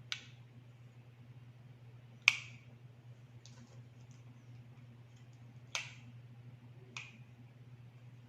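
Four sharp plastic clicks a second or more apart from handling wireless earbuds and their charging case, the second the loudest, over a faint steady hum.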